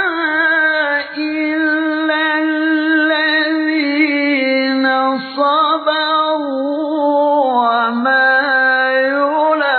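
A male qari reciting the Quran in melodic tarannum style, holding long ornamented notes in a high, clear voice. He takes brief breaths about a second in and again around five seconds in.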